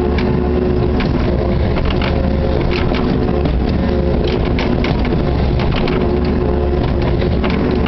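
Kubota KX61-3 mini excavator's diesel engine and hydraulics running steadily, heard from inside the cab, with a steady whine over the engine's hum. Over it come scattered cracks and scrapes as the steel bucket breaks and scrapes ice, thickest about three seconds in and near the end.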